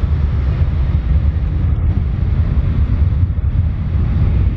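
Boeing 737-800's CFM56-7B turbofan engines at takeoff power, a steady, deep jet roar as the airliner rolls down the runway, with wind buffeting the microphone.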